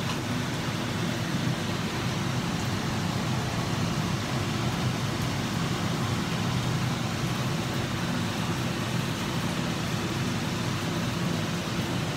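Teriyaki sauce and salmon sizzling and bubbling in a frying pan on a gas burner: a steady hiss over a low, even hum.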